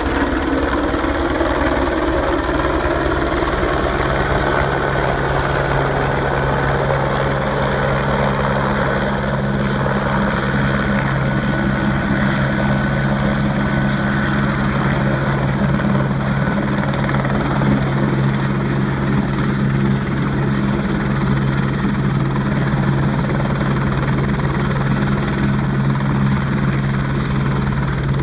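Eurocopter AS350 B2 A-Star single-turbine helicopter descending, hovering low and settling onto its skids. The rotor beats steadily under loud turbine noise. A steady low drone grows stronger about seven seconds in.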